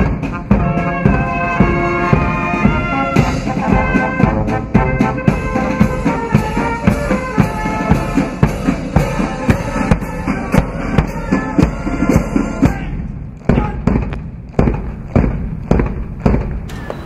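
Marching band playing a march, brass over a steady drum beat. About thirteen seconds in the tune stops and only the drum keeps beating time for a few seconds.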